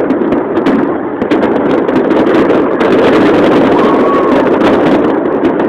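Fireworks display: many overlapping bangs and crackles of bursting shells over a dense, steady rumble.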